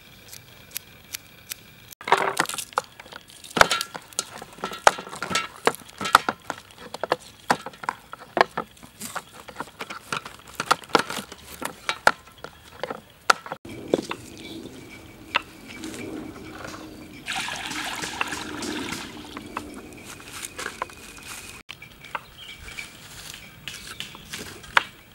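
Knives and a cleaver chopping vegetables on a wooden chopping block: rapid, irregular sharp knocks. They break off in the middle for several seconds of softer, noisier sound, then start again near the end.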